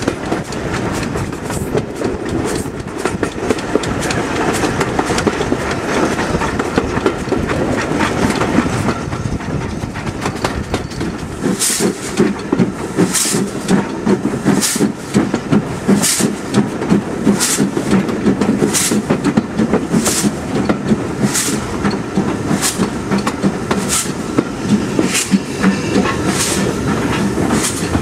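A passenger train's carriage running on the track, its wheels clattering. From about halfway through, sharp clacks come about once every second and a bit as the wheels pass over rail joints.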